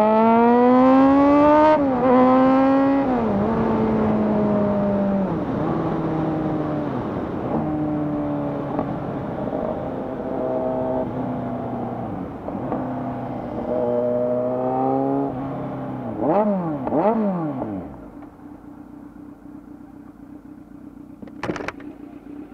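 Kawasaki Z900's inline-four through an SC Project full-system exhaust, accelerating hard in the first couple of seconds, with upshifts at about two and three seconds. It then runs at a lower, wavering pitch while riding and slowing, gives two quick throttle blips about three-quarters of the way in, and drops to a steady idle. A short sharp click comes near the end.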